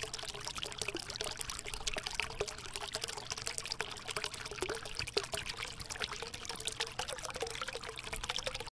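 Water trickling and splashing over rocks, a constant run of small drips and splashes, with a faint steady hum underneath.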